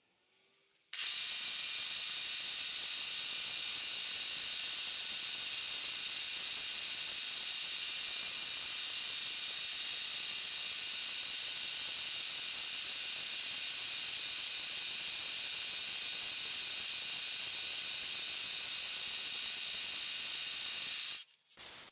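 Milling machine spindle running with an end mill facing a cast eccentric cap: a steady high-pitched whine over a hiss. It starts abruptly about a second in and cuts off just before the end.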